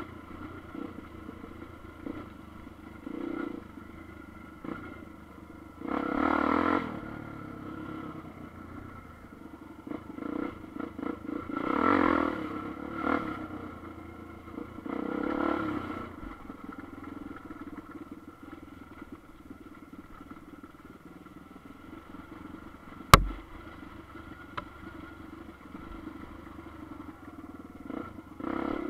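250 cc single-cylinder dual-sport motorcycle ridden along a rough dirt trail: the engine runs low and steady, opening up in three short bursts of throttle, with one sharp knock about two-thirds of the way through.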